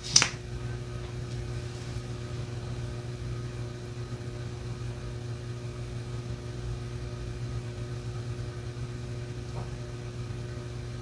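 Steady low mechanical hum of room background noise, holding several fixed low tones without change, with a short click at the very start.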